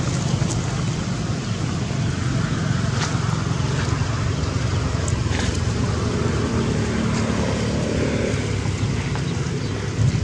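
Steady low rumble of wind buffeting the camera microphone.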